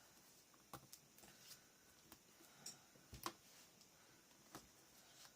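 Near silence with a few faint, short taps and clicks, the loudest about three seconds in: chipboard and paper pieces being handled and set down on a scrapbook layout.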